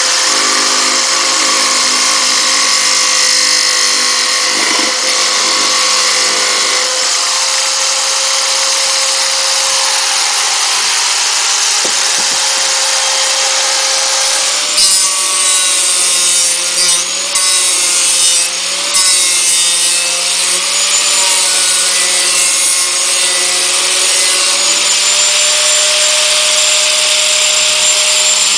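Handheld power sanding of a wooden cabin box's edges: a corded electric drill fitted with a sanding disc, and by the end an angle grinder. A steady motor whine runs under the gritty rub of the disc on the wood. The sound changes abruptly about halfway through, after which the whine wavers in pitch.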